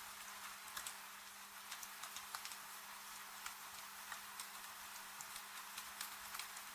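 Wood fire crackling, with sharp irregular pops several times a second over a steady hiss of rain. A faint low hum runs underneath.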